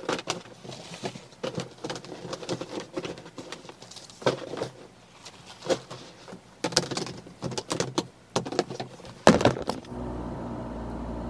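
Purses and bags being packed into a clear plastic storage bin: irregular clicks, knocks and rustles as they are pushed in, with a louder knock just before the end. It gives way to the steady low hum of a car cabin while driving.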